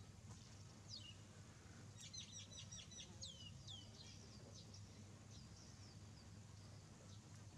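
Faint high chirping calls in a quick run of short, falling notes about two seconds in, over a low steady hum.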